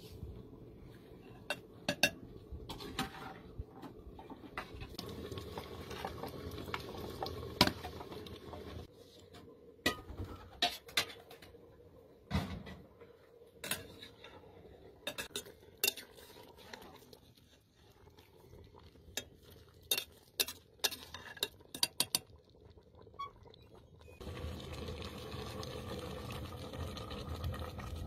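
Metal cooking pots, lids and a ladle clinking and scraping as food is stirred in a metal pot over a wood fire, in scattered sharp clinks, over a low steady rumble that fades in the middle and comes back near the end.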